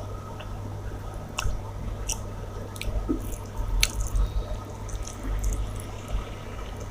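Wet mouth sounds of a person eating rice and chicken curry: irregular smacks and clicks of chewing, over a steady low hum.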